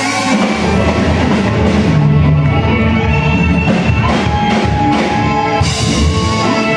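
Live band playing rock music through a PA: electric guitars holding sustained notes over a drum kit and bass, steady and loud.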